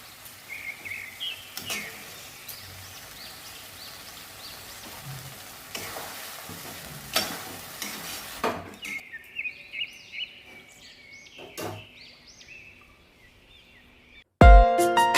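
Chicken masala sizzling in a pan while a spoon stirs it, with occasional scrapes against the pan; the sizzle fades about two-thirds of the way through. Music starts abruptly near the end.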